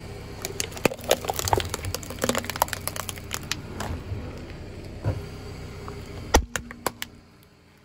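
A car tyre rolling over a paper coffee cup with a plastic lid: a dense run of crackling and snapping as the cup is crushed flat. About six seconds in, a plastic Nutella & Go container is crushed under the tyre with one loud sharp crack and a few smaller cracks after it. A steady low hum runs underneath.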